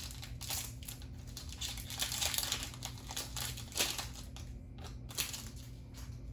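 Plastic booster pack wrapper from a trading card game being crinkled and torn open by hand, with a few sharp crackles about four and five seconds in. A steady low hum lies underneath.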